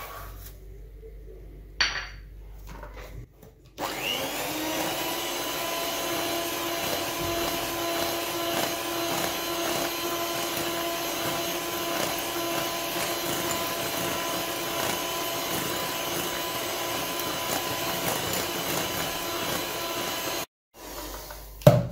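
Electric hand mixer beating sugar into whipped eggs: a steady motor whine that starts about four seconds in, rises briefly to speed, runs steadily and cuts off suddenly near the end. A short clink comes about two seconds in, before the mixer starts.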